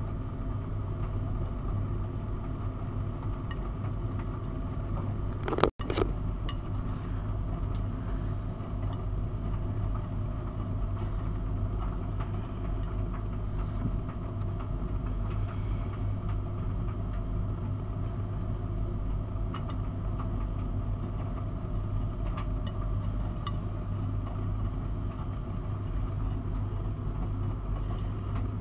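Miele W 5873 WPS front-loading washing machine in its wash phase, the drum turning a load of dark laundry through water, with a steady low hum from the machine and the Siemens iQ500 heat pump dryer running alongside. About six seconds in there is one sharp click with a split-second dropout, and a few faint clicks come later.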